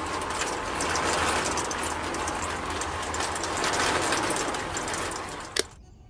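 The small electric motor of a miniature homemade concrete mixer running steadily, turning the drum with a whirring rattle. It cuts off with a click about five and a half seconds in.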